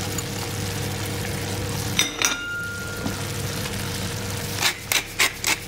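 Coconut-milk curry sauce with vegetables simmering and sizzling in a cast-iron skillet on an induction hob, over a low electrical hum. About two seconds in come a couple of sharp clicks and a short high beep, after which the hum drops away. Near the end there is a quick run of sharp clicks, about four a second.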